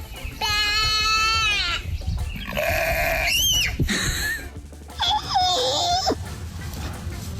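Goat bleating loudly three times, each call about a second long, the last one wavering in pitch.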